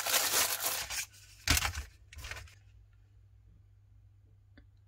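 Hands rubbing and handling a plastic tray of roach bait stations, with a knock about a second and a half in and a shorter scrape just after, then quiet apart from a faint click near the end.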